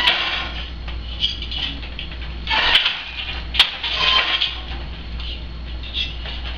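Hand weaving on a wooden countermarch loom: sharp wooden knocks of the beater and loom parts, one at the start and two close together near the middle, between swishing as the shuttle slides through the shed and the shafts shift.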